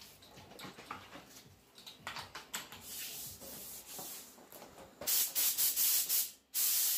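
Quiet rustling and clicks of an air hose and spray gun being handled, then a compressed-air paint spray gun hissing in several short bursts about five seconds in, and hissing steadily near the end as spraying of the topcoat begins.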